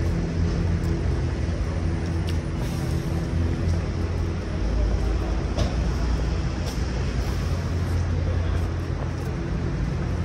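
Street traffic, with a vehicle engine running close by in a steady low hum that eases a few seconds in, followed by a deeper rumble.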